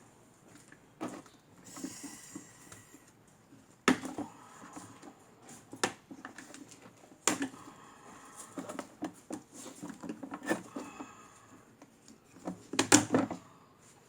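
Clicks, knocks and rattles of a fan's rear guard being unfastened and handled, with sharp knocks about four and seven seconds in and a quick cluster of them near the end.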